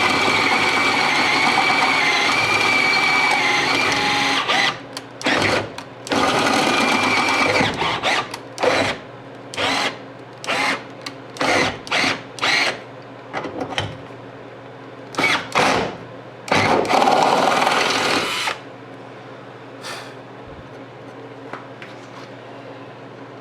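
Electric drill boring out a truck door hinge's pin hole with a 31/64-inch bit to take brass bushings. It runs steadily for about four and a half seconds, then in a string of short trigger bursts until about 18 seconds in, after which only a low steady hum remains.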